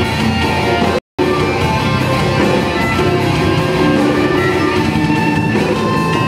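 Rock band playing live, with guitar over drums. The sound drops out completely for a moment about a second in.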